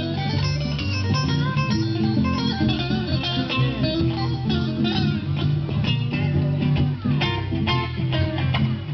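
Live band music: guitars playing an instrumental passage of quick picked notes over a steady bass line, with no singing.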